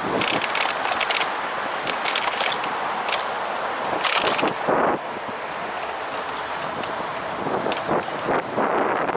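Steady wind and tyre noise of a bicycle being ridden, with clusters of sharp clicks and rattles several times, loudest about four seconds in.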